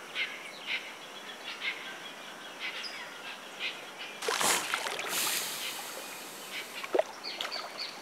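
Wetland ambience with scattered short bird chirps over a steady hiss. A rush of noise about a second long comes just past the middle, and a brief sharp sound comes near the end.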